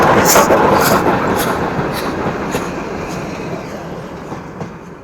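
A passing train's rumble with its wheels clicking over rail joints about twice a second, fading steadily as the train moves away.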